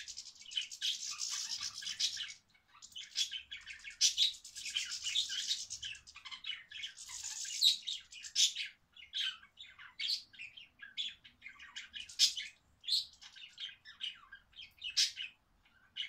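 Budgies and goldfinches chirping and twittering, with some squawks: dense, unbroken chatter in the first half that breaks off every two or three seconds, then scattered single chirps in the second half.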